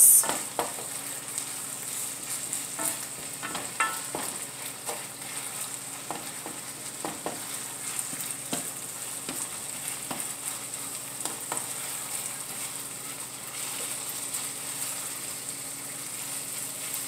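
Ground pork sausage sizzling as it browns in a frying pan, with the scrapes and knocks of a wooden spoon stirring it. There is a sharper knock right at the start.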